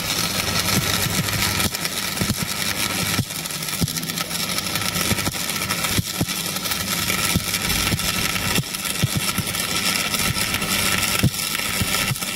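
Stick welding arc burning steadily with a dense crackle and hiss, pierced by frequent sharp pops of spatter, over a faint low hum.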